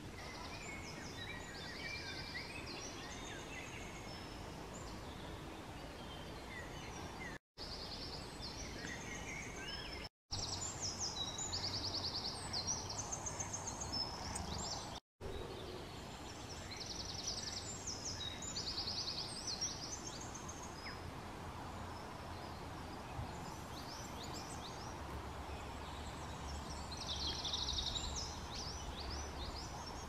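Several small songbirds singing and calling, quick repeated chirps and trills, over steady outdoor background noise. The sound cuts out completely three times for a moment, at about 7, 10 and 15 seconds in.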